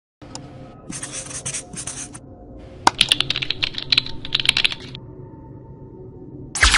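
Computer keyboard typing in two quick runs of clicks, over faint music, with a short, loud sweeping sound near the end.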